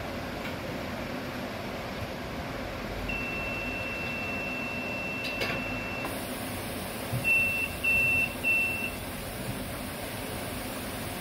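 Medical ventilator beeping: one long steady tone of about three seconds, then three short beeps at the same pitch in quick succession, over a steady hiss of machine noise.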